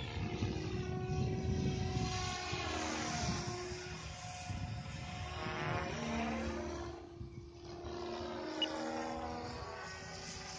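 SAB Goblin 500 electric RC helicopter in flight: its rotors and brushless motor make a steady whine whose pitch rises and falls as it moves back and forth, dipping briefly about seven seconds in.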